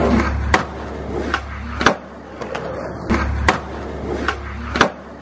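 Skateboard wheels rolling on concrete, broken by four sharp cracks of the board's tail popping and the deck slapping down as the skater tries a trick off a small set of stairs.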